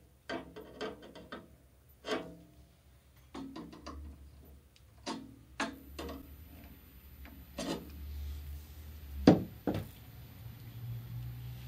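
Metal hand tools, a screwdriver and pliers, being handled and set down: a run of short clicks and clinks with a brief ring, the loudest about nine seconds in. A low hum runs underneath from about four seconds in.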